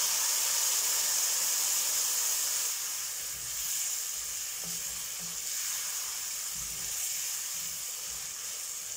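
Frying masala of ginger, garlic, chilli and spice powder in oil sizzling steadily in a pan as soaked dates with their soaking water go in, stirred with a wooden spoon. The sizzle eases slightly about three seconds in, with a few soft spoon knocks after that.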